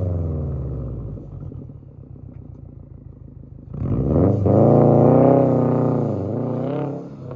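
2020 Subaru WRX STI's 2.5-litre turbocharged flat-four, heard through a Tomei Expreme cat-back exhaust with a deep rumble. Its revs fall back and it settles to a low idle, then about three and a half seconds in the car pulls away hard. The revs climb with a brief dip about six seconds in, and the sound fades as the car drives off.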